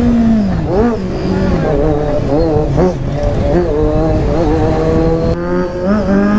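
Kawasaki Z900's inline-four engine running under way, its revs rising and falling several times with the throttle and gear changes.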